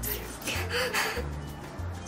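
Background music with a bassline of held low notes that step in pitch every few tenths of a second.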